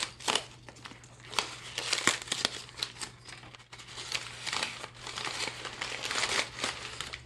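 Newspaper wrapping crinkling and rustling in irregular crackles as a taped bundle is pulled open and unfolded by hand.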